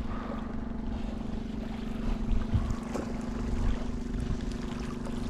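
Boat motor running steadily, a constant low hum, with wind and sea noise around it.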